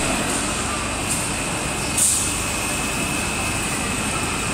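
PE stretch film production machine running: a steady mechanical noise with a constant high whine, and a short hiss about two seconds in.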